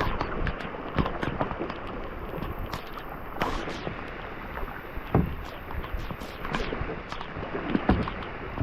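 Water sloshing around a kayak, with many small clicks and knocks on the hull, a few sharper ones about five and eight seconds in.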